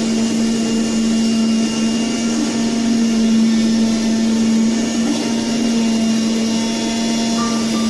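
Mastec MLO1625 oscillating-knife CNC leather cutting machine running steadily through a cut, with the drone of its vacuum hold-down table and a constant hum.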